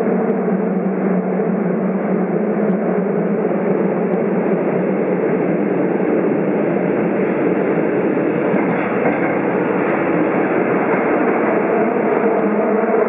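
Tokyo Metro 02 series subway train running at speed through a tunnel, heard from inside the car: a steady loud rumble of wheels and running gear with a constant low hum.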